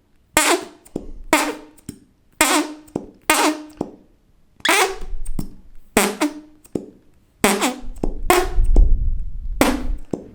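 A run of about ten fart sound effects, each a short pitched blast that falls in pitch and trails off in an echo.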